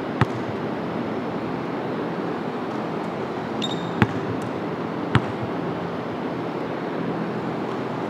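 A basketball bouncing sharply on a hardwood gym floor three times at uneven spacing, with a short sneaker squeak just before the second bounce, over a steady background hum.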